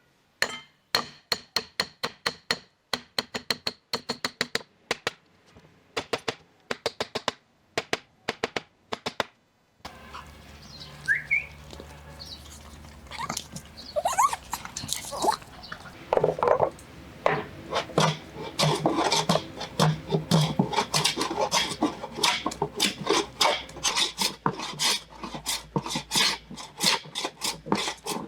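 Hand work on wood: a quick run of sharp knocks and taps for about the first ten seconds, then continuing workshop noise of irregular taps and scraping over a steady background.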